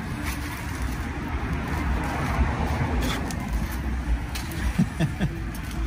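Street traffic noise, a steady low rumble, with a vehicle passing about halfway through.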